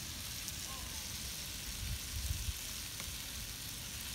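Open garbage-heap fire burning with a steady hiss and scattered small crackles. A low rumble swells briefly about two seconds in.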